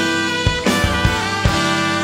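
A live band playing an instrumental passage: drum-kit hits under held, ringing chords from the other instruments.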